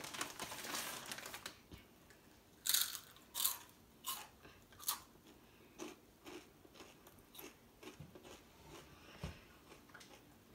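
Flaming Hot Funyuns being eaten: a chip bag rustles, then about three seconds in come four crisp crunching bites less than a second apart, followed by softer chewing.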